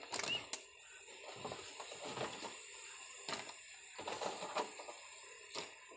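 Flat bean pods being dropped by hand into a pan of boiling water and settling in it: a few irregular soft knocks and splashes against the pan, over a faint steady hiss.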